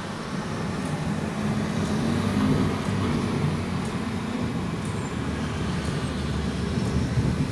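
Thunder rumbling low and long, swelling about two to three seconds in, over a steady hiss.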